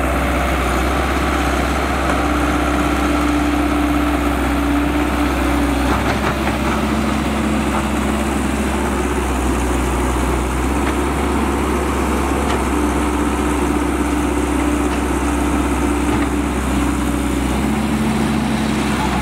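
Cat E120B excavator's diesel engine running steadily: a constant low drone, with a higher hum that swells and fades a few times.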